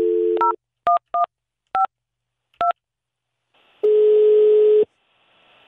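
A telephone call is being placed. A steady dial tone stops about half a second in, then five touch-tone keys are pressed, each a short two-pitch beep. After a pause comes one ring of the ringback tone, about a second long, over faint line hiss.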